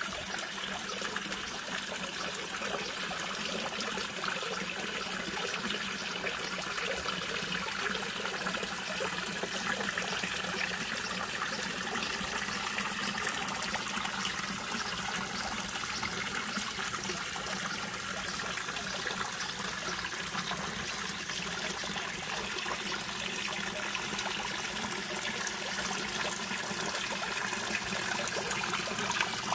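Backyard pond waterfall: water spilling steadily over a stone spillway ledge and falling in a sheet, a continuous even splashing and trickling.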